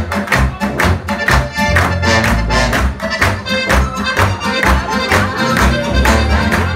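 Live polka played on a Steirische Harmonika (Styrian diatonic button accordion) with guitar and bass on a steady two-beat pulse, the audience clapping along on the beat.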